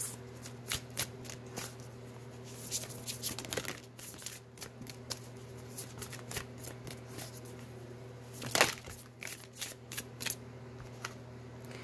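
A deck of oracle cards being shuffled by hand: irregular soft slaps and clicks as the cards slide and knock together, with a louder flurry about eight and a half seconds in. A faint steady low hum runs underneath.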